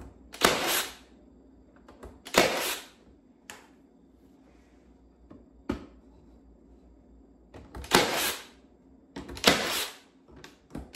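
Cordless battery-powered brad nailer driving brads into wooden trim: four sharp snaps, each with a short tail, two early and two near the end, with a couple of lighter taps between.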